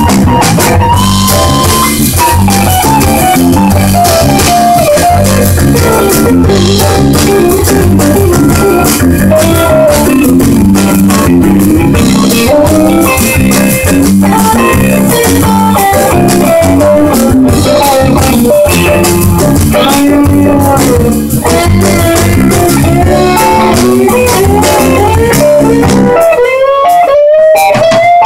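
Live jazz band playing loudly: electric guitar and drum kit, with a lead line that bends and slides in pitch over shifting low notes. Near the end the low end drops out briefly under a rising slide.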